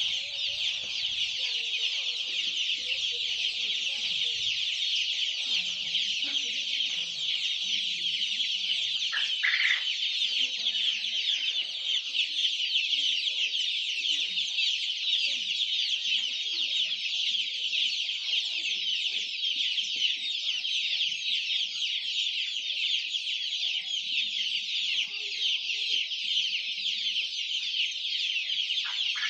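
A large flock of young chicks peeping all at once: a dense, steady, high-pitched chorus of overlapping chirps.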